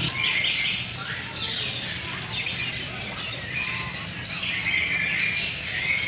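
Many aviary birds chirping and calling at once, a dense run of short, overlapping high calls with no break.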